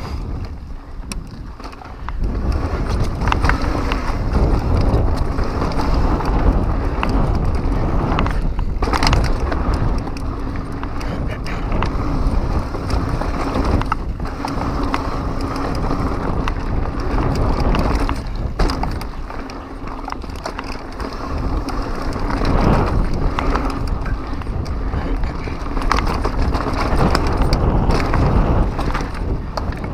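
2015 Pivot Mach 6 mountain bike descending fast on a dirt trail: knobby tyres rolling and skidding over dirt, with the bike rattling and knocking over bumps and a low rumble of wind on the microphone. The noise eases briefly twice, about two seconds in and again about two-thirds of the way through.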